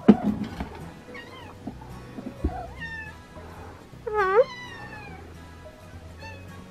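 Domestic cat meowing several times in short calls, the longest and loudest about four seconds in. A sharp knock right at the start and a lighter thud a couple of seconds later.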